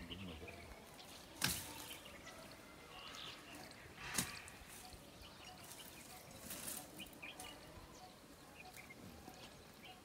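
Quiet outdoor ambience with faint scattered high chirps, broken by two sharp clicks about a second and a half and four seconds in, and a brief rustle of noise a couple of seconds later.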